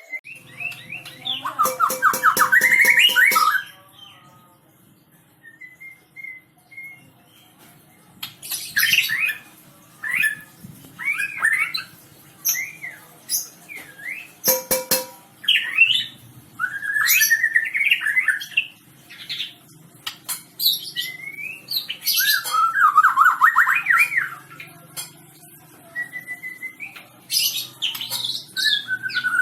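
White-rumped shama (murai batu) singing a long, varied song: clear whistled phrases, quick trills and harsh squawky notes, delivered in bursts with a few seconds' pause early on.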